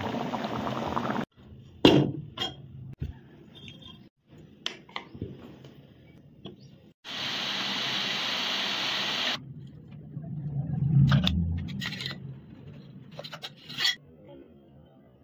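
Kitchen cooking sounds in short edited cuts: a spoon knocking and scraping against a cooking pot, broken by two stretches of steady hiss from the pan, one at the start and one in the middle lasting about two seconds.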